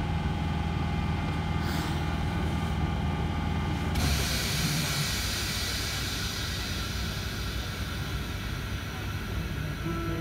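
Z20500 electric commuter train standing still, its equipment giving a steady low hum; about four seconds in, a sudden hiss of compressed air from the train's pneumatic system starts and keeps going.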